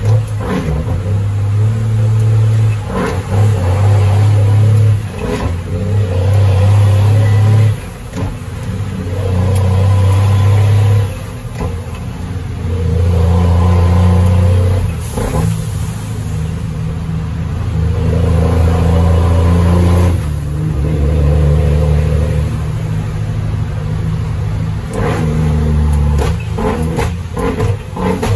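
Cummins M11 Select Plus diesel of a Freightliner FLD working up through the gears of an 18-speed transmission, heard from inside the cab. The engine note comes in pulls of one to three seconds, each dropping off briefly as the next gear goes in.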